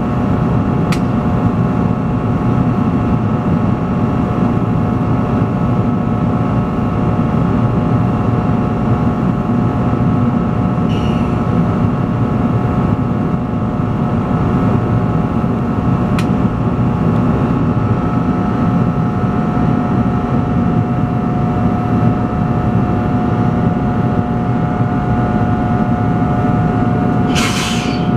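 NJ Transit ALP-46 electric locomotive standing at the platform with its fans and electrical gear running: a steady loud rumble with several steady whining tones over it. Two sharp clicks come in the middle stretch, and a short burst of hiss comes near the end.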